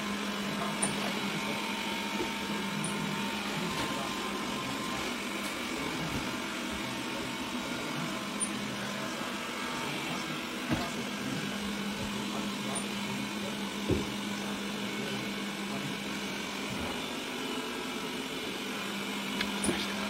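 Xiaomi Mi Robot Vacuum running: a steady hum of its suction fan and brushes, with a few light knocks.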